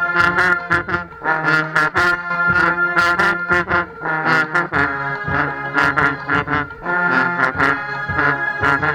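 Marching band playing a stand tune: brass with a steady beat of sharp percussive hits.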